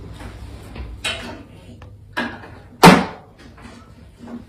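Handling noises: a few short knocks and rustles, the loudest a sharp thump about three seconds in.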